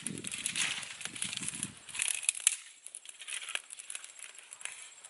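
Dry sticks and twigs being handled, broken and laid onto a small fire: a rough rubbing sound for the first two seconds, then scattered clicks and snaps with one sharp crack about two and a half seconds in.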